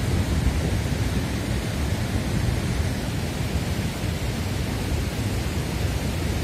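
Flash-flood torrent rushing past: a steady, unbroken noise with a heavy low rumble.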